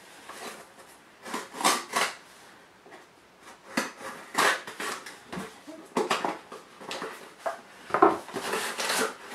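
A shipping package being opened by hand: the box and packing material rustling and crinkling in short, irregular spells.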